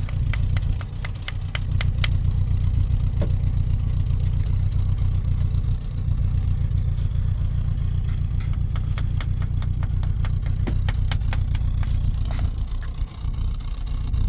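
Steady low rumble of a running engine, with two runs of rapid faint clicking, one at the start and one past the middle.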